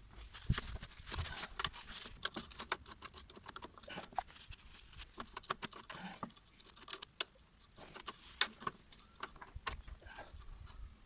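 Irregular light clicks and clinks of hand tools and small metal parts being handled, as the rear wheel of a Honda HRS536 push mower is fitted.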